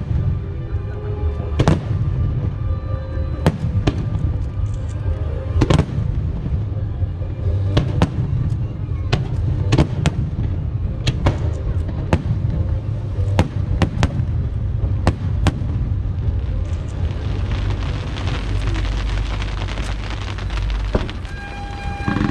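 Fireworks shells bursting in sharp bangs every second or two over a continuous low rumble, with show music playing along. About seventeen seconds in, a dense steady hiss fills in for several seconds.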